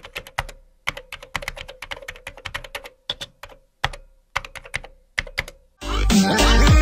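Computer keyboard typing: quick, irregular keystrokes in short runs with brief pauses. Near the end the typing stops and music with a heavy beat comes in.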